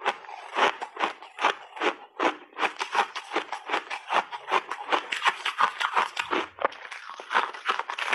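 Refrozen ice block being bitten and chewed: a fast run of sharp, crisp crunches, about three to four a second.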